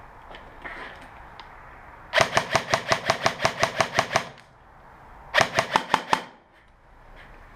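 Airsoft replica firing two rapid strings of shots, about seven a second: a longer string of about fourteen, then after a short pause a shorter one of about six.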